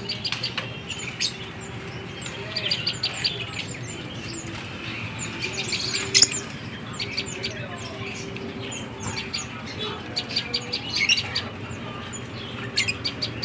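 Many small caged songbirds chirping and calling at once in quick, overlapping short notes, the loudest chirp about six seconds in, over a low background murmur.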